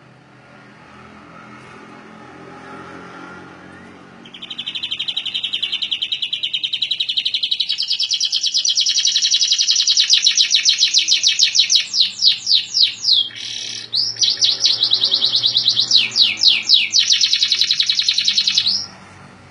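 Canary singing a long rolling trill (ngerol) of very fast repeated high notes. It starts about four seconds in, breaks off briefly partway through, is broken by a few slower sweeping notes, and cuts off suddenly near the end.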